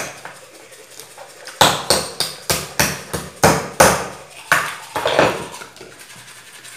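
Cooked mud crab shells being cracked open at a dining table. Starting about a second and a half in, about ten sharp, irregularly spaced knocks come in a little over three seconds.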